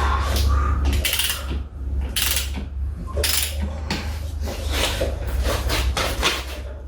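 Hand tools and metal parts clinking and rattling in a series of irregular sharp clicks and short scraping bursts, as the motorcycle's primary drive is reassembled.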